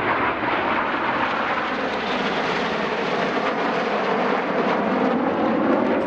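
Formation of BAE Hawk T1 jet trainers flying overhead, with the steady noise of their Rolls-Royce Turbomeca Adour turbofan engines.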